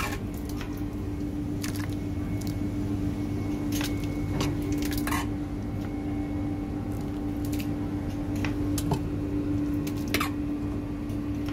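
A ladle scooping thick Bolognese sauce from a large stainless steel cooking kettle: wet squelching and a few sharp clinks of metal on metal. Under it runs a steady machine hum.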